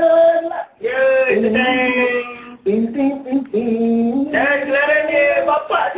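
A man singing a melody in long held notes that step up and down in pitch, with brief breaks about a second in and near the middle.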